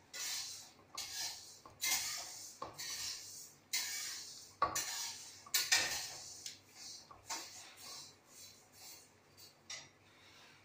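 Hand mixing crumbly milk-powder dough in a stainless steel bowl: fingers scrape and knock against the steel in short strokes about once a second, fading over the last few seconds.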